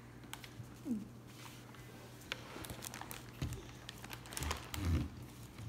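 Faint crinkling and rustling of an inflated foil balloon bag being handled, in a few short spells.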